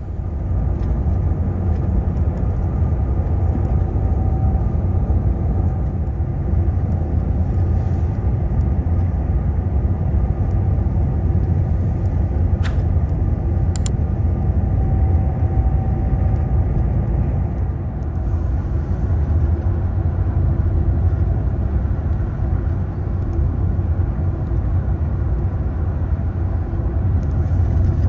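Tour coach under way: a steady low engine and road rumble. Two faint sharp ticks come about a second apart midway through.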